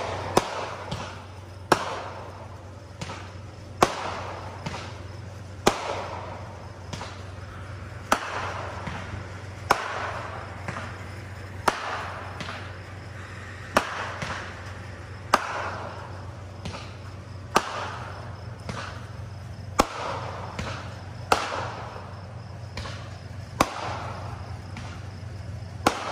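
Distant aerial fireworks bursting one after another, a sharp bang about every two seconds, each trailing off over about a second.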